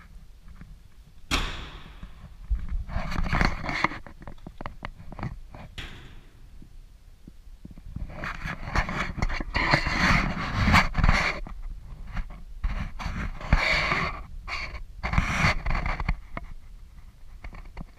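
The steel door of a 1992 Lada VAZ 21053 shuts with a sharp bang about a second and a half in. Irregular bursts of scraping and rustling follow as things around the car are handled.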